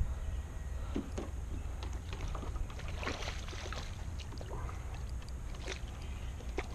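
Splashes and short clicks as a hooked small bass thrashes at the pond surface and is reeled in to the dock on a spinning rod, over a low steady rumble.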